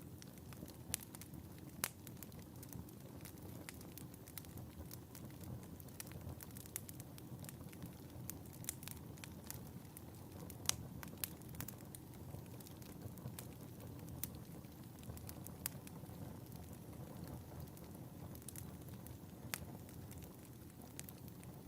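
Wood fire burning in a fireplace: irregular sharp pops and crackles over a low, steady rush of flame.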